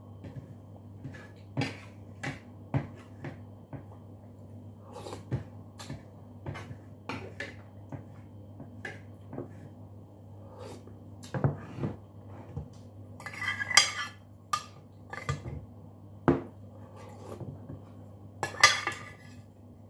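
Metal spoon and fork clinking and scraping against a plate in irregular light taps, with two longer scraping spells, one in the middle and one near the end, over a faint steady low hum.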